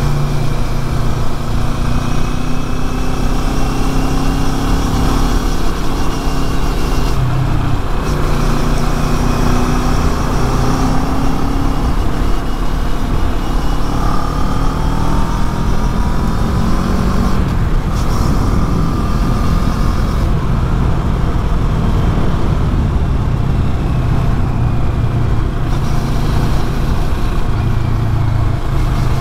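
CFMoto NK400's stock-exhaust parallel-twin engine running under way, its note rising and falling with throttle and gear changes, a couple of times dipping briefly, over steady wind and road rumble.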